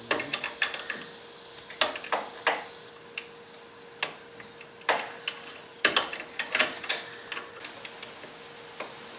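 Socket ratchet clicking in short, uneven runs, with metal tools clinking, as the lock nuts on the new upper ball joint's bolts are tightened.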